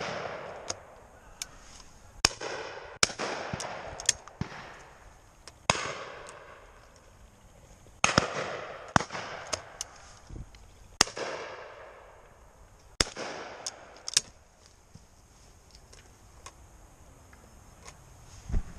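Shotguns firing repeatedly at driven pheasants: more than a dozen shots, some close and loud, others fainter and farther off, each trailing off in an echo.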